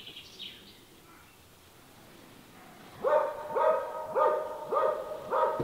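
A hunting hound barking at a wild boar, about two barks a second, starting about three seconds in. The dog is giving tongue at the boar, holding it at bay.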